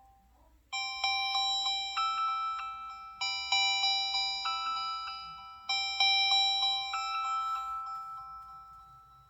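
LG X2 phone ringtone: a short chiming melody in glockenspiel-like struck tones, the phrase starting three times about two and a half seconds apart and fading away near the end.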